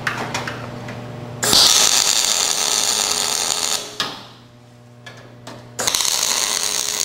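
MIG (wire-feed) welding arc crackling as the steel double-jaw strips are welded to a coil-spring trap's jaws. There are two welds of about two and a half seconds each: one starts about a second and a half in, the other near the end. A low hum is heard between them.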